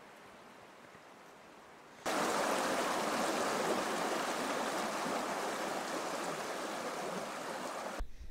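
Faint outdoor quiet, then about two seconds in the steady rush of a flowing stream starts suddenly and runs at an even level until it cuts off abruptly near the end.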